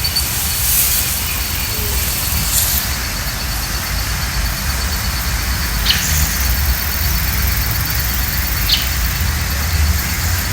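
Steady outdoor noise with a fluctuating low rumble, and four short, high chirps spread through it.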